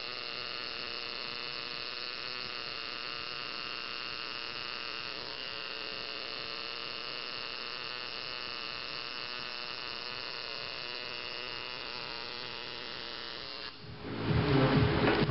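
Coil tattoo machine buzzing steadily as it needles skin. It cuts off about a second and a half before the end, giving way to a louder, noisier sound.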